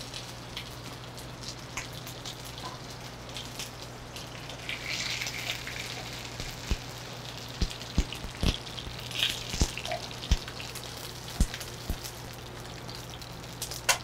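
Sea bass fillets frying in oil in a skillet, sizzling steadily with scattered sharp pops and spits of oil, most of them in the second half.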